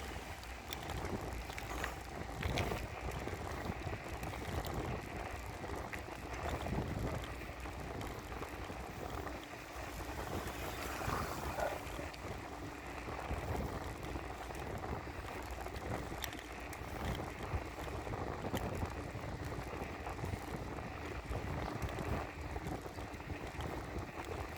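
Riding a bicycle on the road: steady wind on the microphone and tyre noise, with a few light clicks and rattles from the bike.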